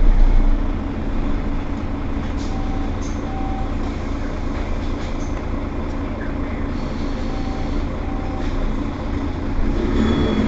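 Mercedes-Benz Citaro city bus running, a steady low drone of engine and road noise.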